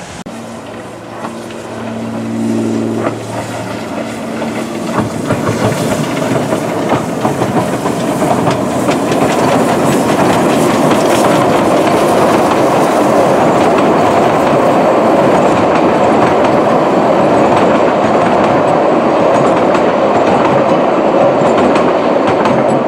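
Narrow-gauge passenger coaches rolling across a trestle bridge, their wheels clattering over the rail joints. The sound swells over the first several seconds and then runs steadily loud.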